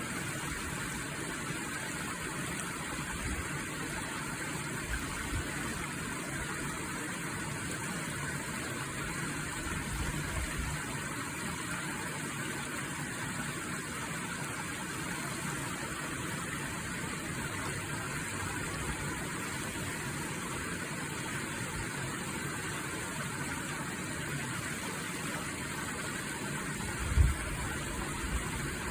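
Stream water running in a steady, even rush, with occasional low rumbles and one brief low thump near the end.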